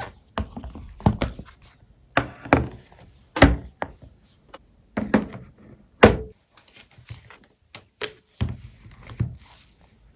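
A series of irregular knocks and thuds on a hard surface, roughly one or two a second, the loudest about three and a half seconds and six seconds in.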